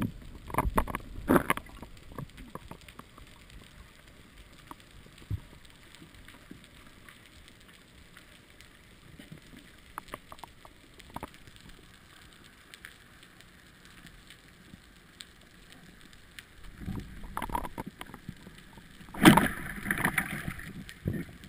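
Muffled underwater sound through a GoPro's waterproof housing, with scattered faint clicks and knocks. Near the end there is a sudden loud hit as the pole spear strikes a fish, followed by about two seconds of churning bubbles and thrashing.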